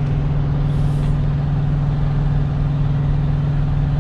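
Idling diesel engine: a steady low drone with a strong hum that does not change.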